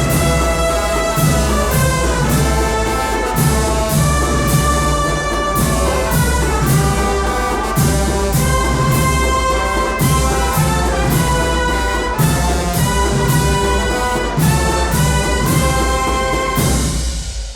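Agrupación musical, a Spanish processional band of brass and drums, playing a palio march live: a brass melody over low bass notes and steady drum strokes. The band drops off briefly near the end before coming back in.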